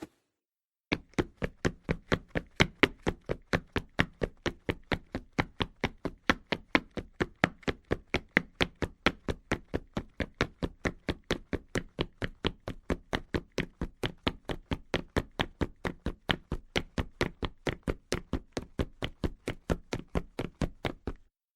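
Rapid footsteps, evenly paced at about four steps a second, each a sharp tap. They start about a second in and stop shortly before the end.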